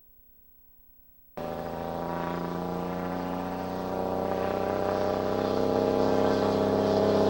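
Cummins ISM inline-six diesel engine running hard, cutting in suddenly about a second and a half in and growing steadily louder.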